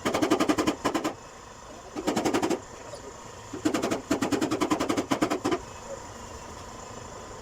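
A power tool hammering in three bursts of rapid, evenly spaced strikes, the last and longest near the end, typical of body work on a metal door panel.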